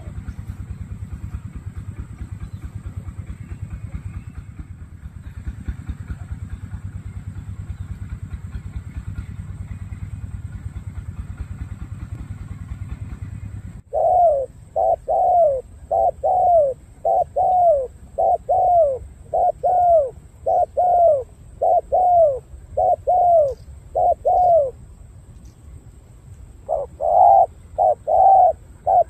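A low steady rumble for about the first half, then a male spotted dove cooing: a quick run of short notes, each falling in pitch, about one and a half a second, that pauses briefly and resumes near the end.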